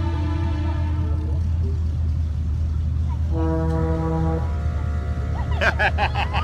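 Low, steady rumble of a car's engine and exhaust while cruising. Over it come two long, steady tones: one ends about a second and a half in, and a lower one is held for about a second near the middle. A voice calls out near the end.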